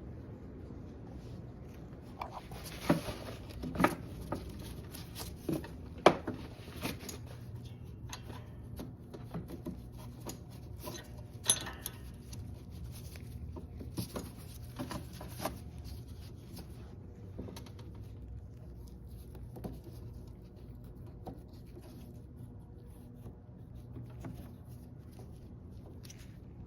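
Scattered clicks and light knocks of small lawnmower parts being handled during disassembly of the rear wheel adjuster and axle holder, mostly in the first half and thinning out after.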